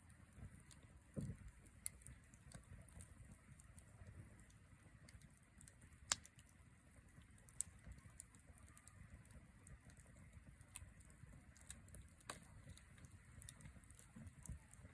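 Wood fire crackling quietly, with scattered sharp pops; a few louder pops come about six, seven and a half, and twelve seconds in.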